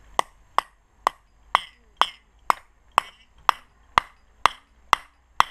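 Climbing hammer driving a piton into a thin rock crack: about a dozen sharp metallic strikes, roughly two a second, each with a brief ring.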